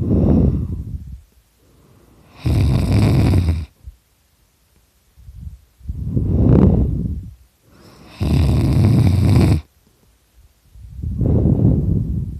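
A person snoring loudly in sleep, in a slow, even rhythm of about five breaths, each lasting a second or more with short pauses between.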